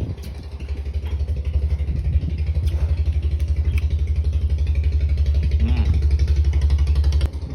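A small engine running close by with a fast, even low throb. It grows louder about a second and a half in and drops off suddenly near the end.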